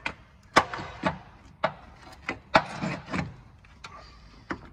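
Irregular knocks and clanks of hand tools and metal parts being handled while an engine mount is refitted: about half a dozen sharp hits, some followed by a short scraping rattle.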